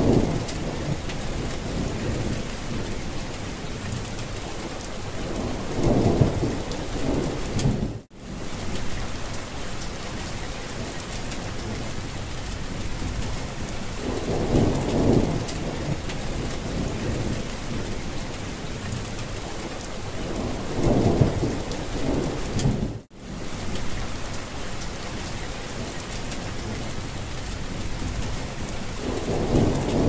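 Steady rain falling, with several low rumbles of thunder swelling up and fading. Twice the sound cuts out for an instant.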